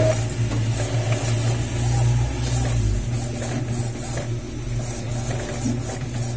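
Epson L5190 inkjet printer running steadily as it prints a page; a lower rumble drops away about three seconds in.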